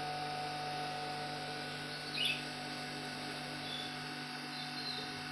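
Steady electrical hum of aquarium equipment such as air pumps and filters, with a short chirp about two seconds in and a few faint high chirps near the end.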